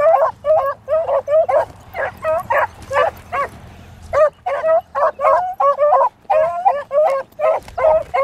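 Beagles baying as they run a rabbit's scent line: quick, repeated high cries, two or three a second, with a short lull about halfway through.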